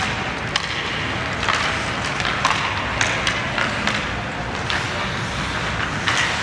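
Ice hockey play on the rink: skate blades scraping and carving the ice in a steady hiss, with scattered sharp clacks of sticks and puck every second or so.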